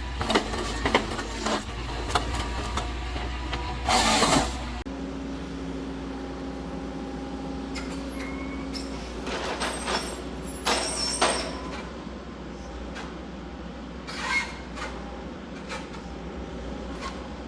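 Forestry machinery running with a steady low drone, broken by several short hissing bursts, the loudest about ten to eleven seconds in; the sound changes abruptly about five seconds in.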